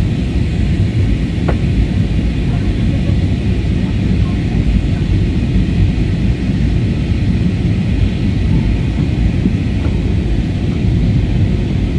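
Steady roar of a jet airliner's engines and airflow heard inside the passenger cabin, on descent for landing.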